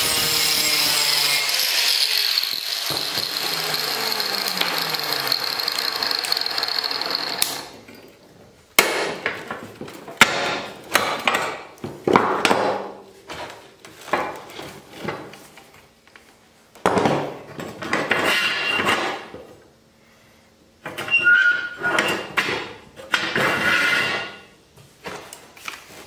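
Small angle grinder with a cutoff wheel cutting notches into square steel tubing, a steady grinding whine that stops abruptly about seven seconds in. After a short pause come irregular short bursts of metal-working noise, some brief and some a second or two long.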